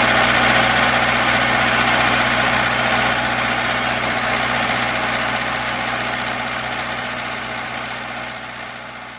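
12 kW diesel standby generator running steadily at constant speed, gradually fading away over the last few seconds.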